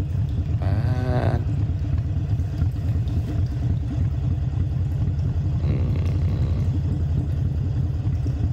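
Harley-Davidson Sportster Iron 883's air-cooled V-twin, fitted with an open air filter, running at low road speed under the rider, a steady rapid pulsing rumble.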